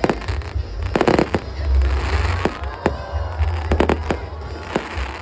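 Fireworks display: aerial shells bursting overhead in an irregular series of sharp bangs, about ten in all, some coming in quick clusters, over a low rumble.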